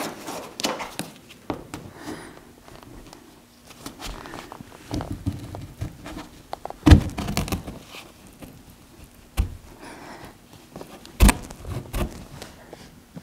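Irregular thumps, knocks and rubbing of a pickup's windshield glass being pushed and worked against its rubber gasket, the glass still stuck to the old gasket in the middle. The loudest knock comes about halfway, with another sharp one near the end.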